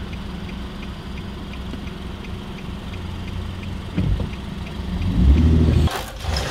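Car engine idling, heard from inside the cabin, with a light regular ticking about three times a second. About four seconds in, the engine swells as the car pulls away, and the sound cuts off suddenly near the end.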